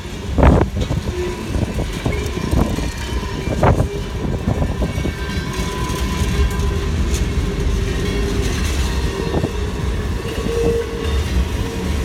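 Freight cars rolling past close by: a steady rumble of steel wheels on rail, with a few sharp clanks in the first four seconds and faint held tones above the rumble.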